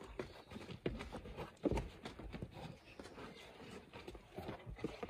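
A Great Dane and a Saint Bernard play-wrestling: irregular scuffling and thumping of paws and bodies on mats and artificial turf, with one louder thump about a second and a half in.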